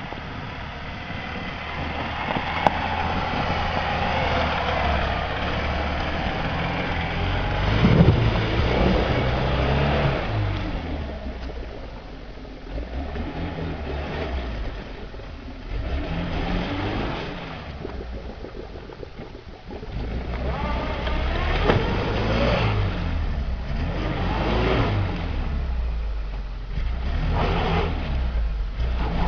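Lada Niva engine revving up and dropping back again and again as the car works its way through a stream.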